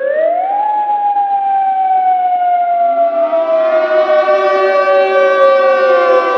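Loud civil defense siren sounding as a tsunami warning: it winds up quickly, then slowly falls in pitch, and more siren tones join about three seconds in.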